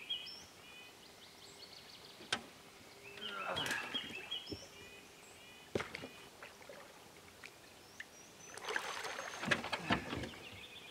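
Water splashing and pouring off as a trapped beaver is hauled up out of the lake beside a boat, in two spells a few seconds apart, with a few sharp knocks in between. A bird chirps in short repeated notes.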